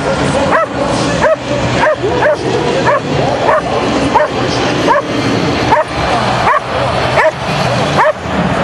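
Dog yipping over and over, short rising-and-falling cries about one every three-quarters of a second, over the general noise of a stadium crowd.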